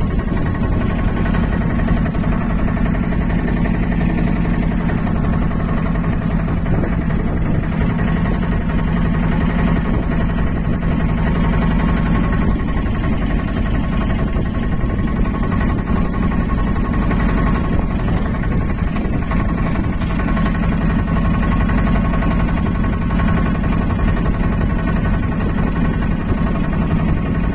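A passenger boat's engine running steadily, heard from on board: a constant, even drone.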